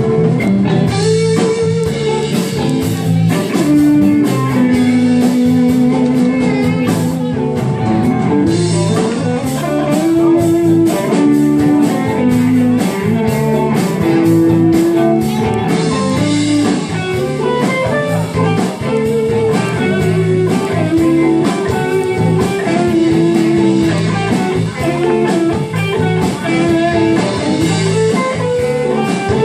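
A live blues-rock band playing an instrumental passage: electric guitar lead lines with long held and bent notes over bass, rhythm guitar and a steady drum beat.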